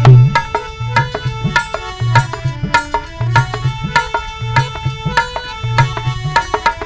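Instrumental interlude of a devotional bhajan: hand drums play a quick, busy rhythm under a steady melody line, with deep bass notes coming and going. A sung line ends just as it begins.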